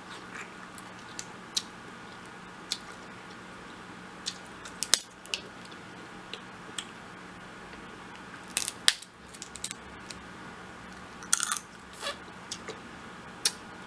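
Close-miked eating of a seafood boil: scattered sharp clicks, cracks and wet smacks of chewing and handling shellfish, with short crackly clusters about halfway through and again a little later.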